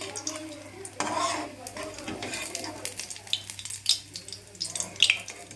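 Malpua batter cakes frying in hot oil in a steel karai, a steady sizzle, with a slotted steel spatula clicking and scraping against the pan as a cake is turned and lifted.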